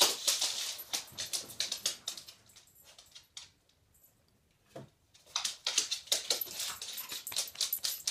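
A dog's claws clicking on a hardwood floor as it walks, many quick taps. The clicking stops for about two seconds, with a single knock in the quiet, then starts again as the dog walks back.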